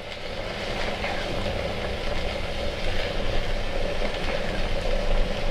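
Steady rumbling hiss of a pan of mushroom masala cooking on the stove. It builds over the first half second, then holds even.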